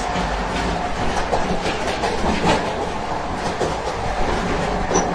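Noise in the gangway between two railway cars of a moving train: a steady heavy rumble with irregular clanking and rattling as the wheels run over the rails, and a brief high squeak near the end.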